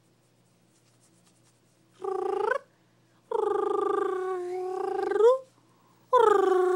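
Baby cooing: three drawn-out, high, slightly wavering vocal sounds, a short one about two seconds in, a longer one of about two seconds, and a third starting near the end.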